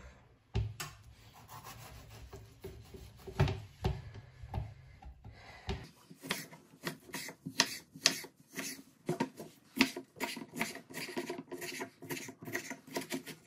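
Chef's knife cutting a tomato on a wooden cutting board: a few scattered knocks of the blade through the fruit onto the board, then, about six seconds in, quick repeated chops as it is diced, several a second.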